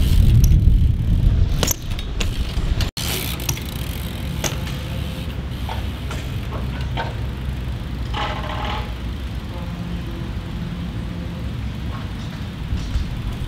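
BMX bike tyres rolling over concrete close by, a loud rumble for the first second and a half, followed by a steady lower rumble with a few scattered clicks and a short noisy burst about eight seconds in.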